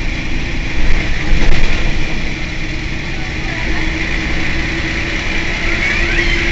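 Rear-mounted diesel engine of a Mercedes-Benz O 405 N city bus idling steadily at a stop, briefly louder about a second in.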